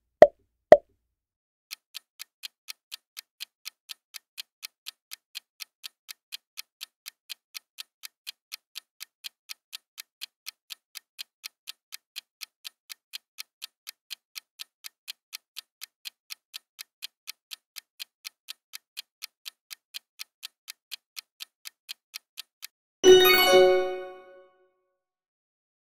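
Countdown-timer sound effect: a light, even clock tick about two to three times a second for some twenty seconds, ending in a loud, ringing bell-like chime as time runs out. Two short pops come at the very start as the answer options appear.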